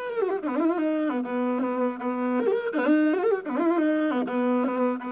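Tuareg imzad, a one-string bowed fiddle with a skin-covered body, playing a solo melody: held notes that step between a low note and the note an octave above, joined by quick sliding ornaments.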